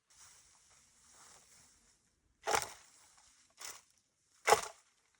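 Three sharp knocks, about two and a half seconds in, a weaker one a second later and a loud one near the end, over a faint hiss.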